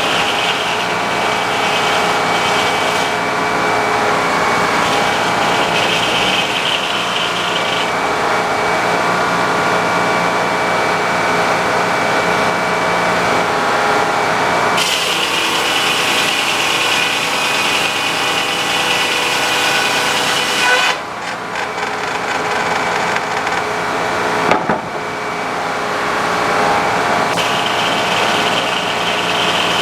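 Sawmill running and sawing a log: a steady engine note under the hiss of the blade in the wood. The sound drops off briefly about two-thirds of the way through, and a single knock follows a few seconds later.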